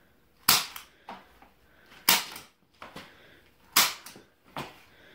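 Hand staple gun firing three times into a cardboard sign pressed against bare skin: three loud, sharp snaps about a second and a half apart, with fainter clicks between them.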